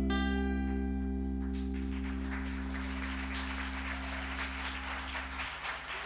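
Live band music: a strummed acoustic guitar chord rings out and fades over a steady low drone, which cuts off about five and a half seconds in.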